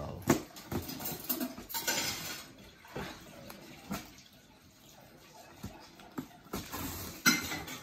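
Cardboard shipping box being handled and worked open: irregular scraping and rustling of cardboard and packing tape, with a few sharp knocks.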